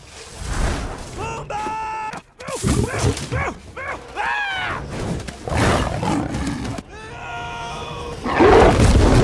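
Lions snarling and roaring in a film fight scene, with high, held cries and swooping shrieks in between. The loudest roar comes about eight and a half seconds in.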